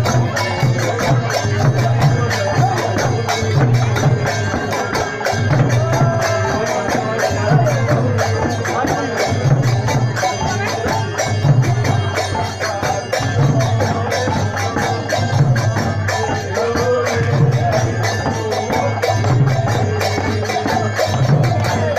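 Live traditional percussion music: continuous rapid jingling over a low drum beat about once a second.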